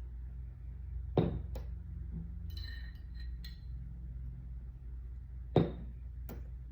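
Kitchen things being handled on a counter: two sharp knocks about four seconds apart, each followed by a smaller click, with a few light ringing clinks like glass or a jar between them, over a steady low hum.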